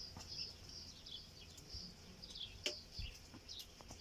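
Small birds chirping over and over in high, short notes, with one sharp click about two-thirds of the way in.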